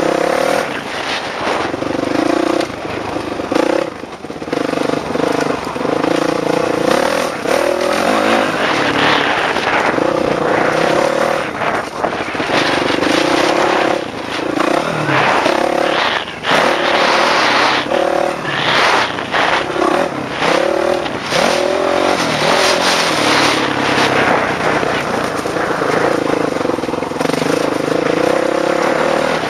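Dirt bike engine being ridden hard, its pitch rising and falling again and again with the throttle and gear changes. Bursts of wind rush over the microphone as the bike picks up speed.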